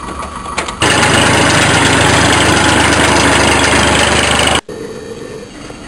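Tractor engine running steadily close by, loud and even; it starts abruptly about a second in and cuts off sharply near the end.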